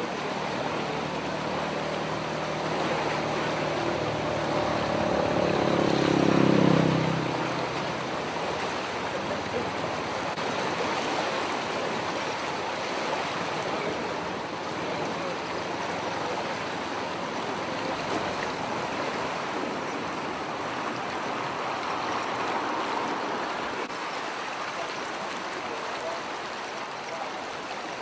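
Brown floodwater rushing steadily past a road bridge. A vehicle passes on the bridge, getting louder to the loudest moment about six and a half seconds in, then dropping in pitch as it goes by.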